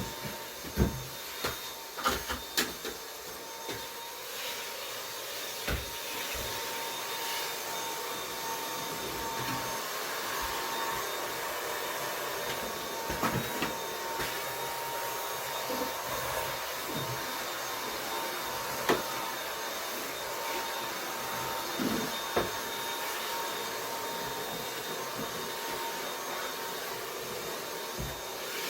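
Dyson vacuum cleaner running steadily with a thin whine, being pushed around a room. A few sharp knocks, most in the first few seconds, are the cleaner head bumping things.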